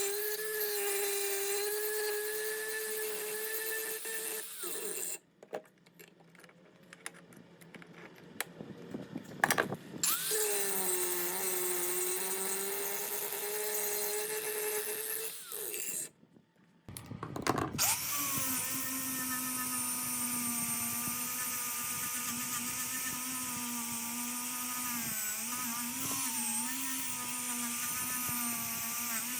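Small electric power tool running with a steady whine. It stops about five seconds in, with a few clicks and knocks during the pause, then runs again from about ten seconds. After another stop near sixteen seconds it starts again at a lower pitch.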